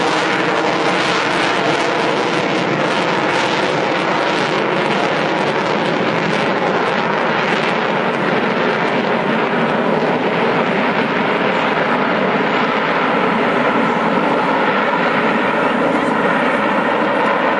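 Lockheed Martin F-22A Raptor's twin Pratt & Whitney F119 turbofan engines, a loud, steady jet noise as the fighter flies overhead.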